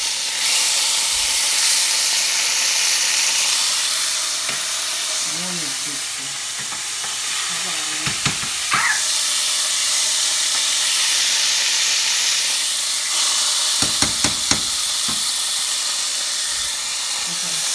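Bacon pieces frying in bacon grease and butter in a skillet: a steady, loud sizzle. A few sharp clicks come through about halfway, and a quick run of four near the end.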